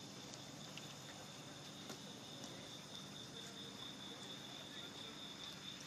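Insects trilling steadily in a faint high drone, over a low background hum.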